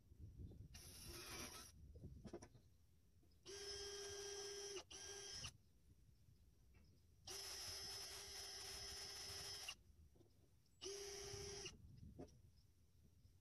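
Red Milwaukee cordless drill run in several separate bursts, each at a steady whine, the longest about two and a half seconds.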